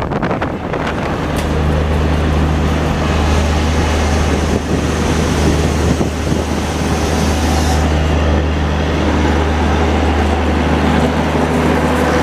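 Rolling noise and wheel clicks of an Indian Railways coach running, cut off after about a second and a half by the steady low hum of a standing train's diesel generator (power) car idling beside the platform.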